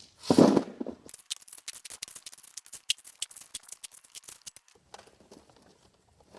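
A shovel digging: one loud crunching scoop about half a second in, then a few seconds of rapid small clicks and rattles of loose stones, dying away near the end.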